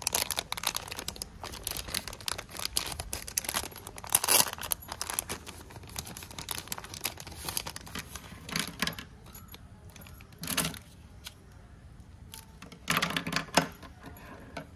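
A clear plastic zip bag crinkling and rustling in the hands as plastic pens are slid out of it. Pens click against each other and clack down onto a wooden table, with a few louder handling bursts along the way.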